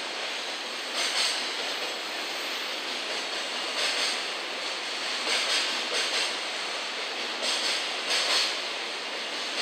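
Container wagons of a freight train rolling past: steady wheel-on-rail rumble with louder, hissing clatters at uneven intervals, roughly every second or so.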